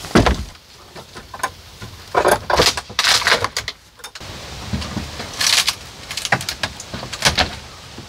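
Wooden outhouse being pulled apart by hand: a heavy thump at the start, then a series of cracks, knocks and scrapes of boards and fittings being wrenched loose.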